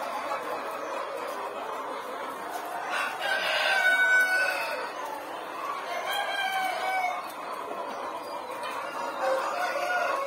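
A flock of caged Giriraja chickens clucking and calling. A loud, drawn-out call comes about three seconds in, and shorter calls follow around six seconds and again near the end.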